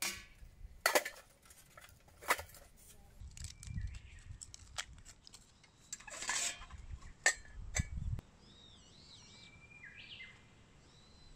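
Metal clinks and knocks from a steel charcoal chimney starter and its metal base being handled and set down, with charcoal lumps shifting inside. Several separate sharp knocks over the first eight seconds, then birds calling faintly near the end.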